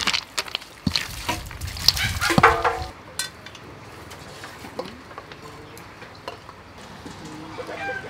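Wooden spoon tossing a shredded vegetable salad in a stainless steel bowl: clicks and scrapes against the metal with rustling leaves for about three seconds, then quieter, with a few scattered clicks.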